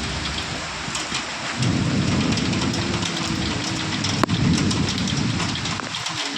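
Heavy rain falling steadily, with a low rumble of thunder that swells about a second and a half in and fades near the end. A single sharp tap comes about four seconds in.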